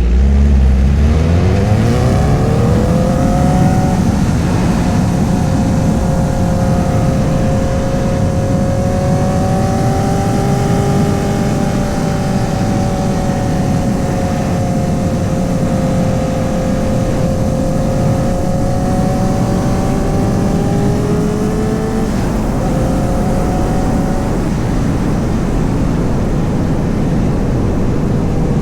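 A 2008 Honda CBR1000RR's 999cc inline-four engine accelerates, rising in pitch for the first few seconds, then holds a fairly steady pitch under a constant rush of wind and road noise. About three-quarters of the way through, the engine note drops and fades, leaving mostly the rushing noise.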